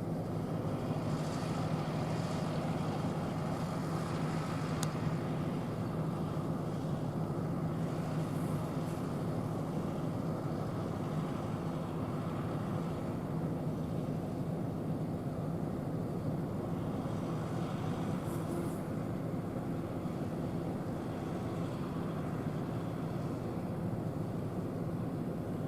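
Farm tractor's diesel engine running at a steady speed, an even drone that holds its pitch throughout.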